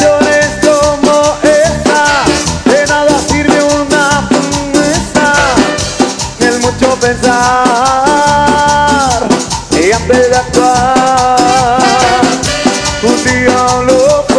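A live dance band playing an upbeat Latin number with a steady beat and a shaker, its lead melody in held notes that bend and slide in pitch.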